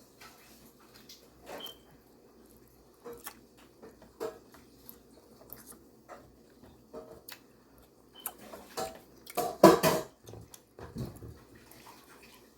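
Spoon or cutlery clinking and scraping against a dish while eating, in scattered light clicks, with a louder burst about ten seconds in.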